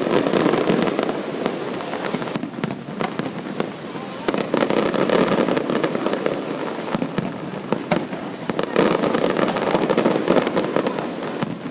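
Fireworks exploding: a dense, continuous run of bangs and crackles in quick succession, swelling louder several times.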